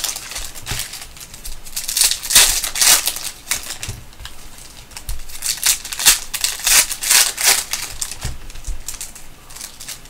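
Foil trading-card pack being opened by hand: crinkling and tearing of the wrapper in irregular bursts, loudest about two and a half seconds in.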